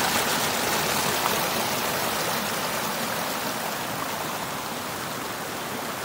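Steady rushing of a waterfall's white water pouring over rocks at the lip of the fall, heard close to the falling water.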